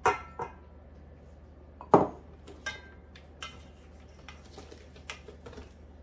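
Clinks and knocks of kitchenware as flour is tipped from a ceramic bowl with a wire whisk into a stainless-steel mixing bowl. The loudest knock comes about two seconds in, as the ceramic bowl is set down on the stone counter, followed by a few lighter clinks.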